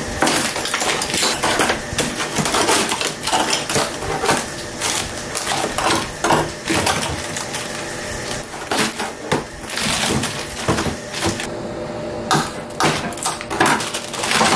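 Ice chunks and frozen packages of meat clunking, clicking and scraping against each other and the freezer walls as they are broken loose and picked out of a heavily iced-up freezer. An irregular run of knocks, with a short lull near the end.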